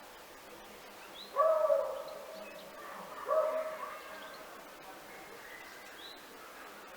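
A dog barks twice, about two seconds apart, over faint outdoor background with small bird chirps.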